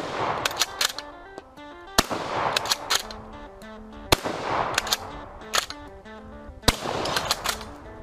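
Bolt-action shotgun fired three times, about two seconds apart, each shot echoing, with the bolt clacking as it is cycled between shots. Background music with plucked notes plays underneath.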